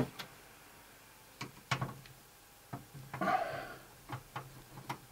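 Scattered small clicks and taps of a screwdriver and fingers working on a DVD/VHS recorder's sheet-metal chassis and DVD drive, with one sharp click at the start.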